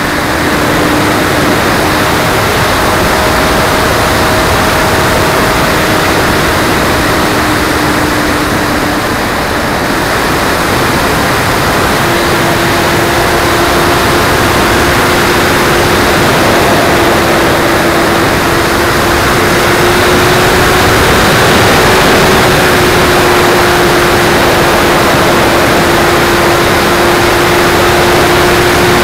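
E-Flite Splendor electric RC plane in flight, heard from its onboard camera: a loud rush of wind over the microphone with the steady whine of the brushless motor and propeller. The whine steps up and down slightly in pitch a few times, then holds steady through the second half.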